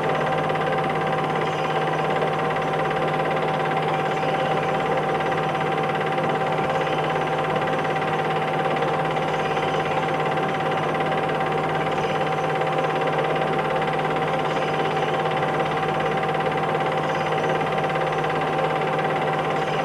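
Steady whir and hum of a film projector running, with one constant high-pitched tone over it and no change in speed.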